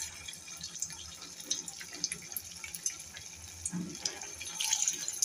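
Sabudana vadas sizzling and crackling in hot shallow oil in a frying pan. The sizzle swells near the end as a second vada goes into the oil, with a soft low knock just before.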